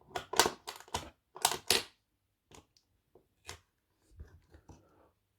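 Metal latch on a wooden latches board being worked open by hand: a quick cluster of clicks and clacks in the first two seconds, then a few scattered lighter clicks.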